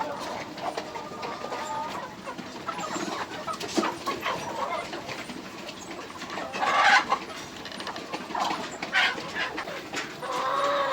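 Chickens clucking and calling, many short calls overlapping, with one louder squawk a little past halfway and a longer drawn-out call near the end.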